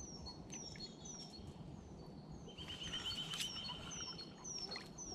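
Wild songbirds singing: one bird repeats a short, high, falling note every half second or so, while another gives a rapid trill from about two and a half seconds in until past four seconds, over low wind noise.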